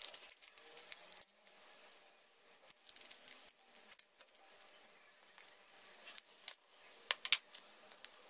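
Faint handling of a foam toy glider: rubbing and rustling on the foam fuselage with scattered light clicks, and a few sharper clicks near the end as the metal cylindrical weight under the cockpit is worked out of its slot.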